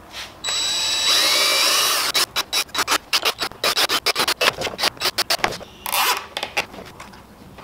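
Cordless drill whirring as it bores through a plastic motorcycle fender, followed by about three seconds of rapid irregular clicking and a short burst near the end.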